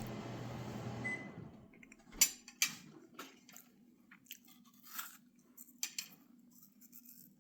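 Shih Tzu crunching and chewing pieces of apple: short, irregular crunches starting about two seconds in. A steady noise fades out before them.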